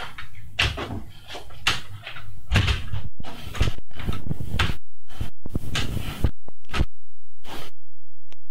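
Adjustable dumbbells clunking and rattling as they are rowed up and set back down, a run of short knocks. In the second half the sound cuts in and out abruptly, with dead gaps between the knocks.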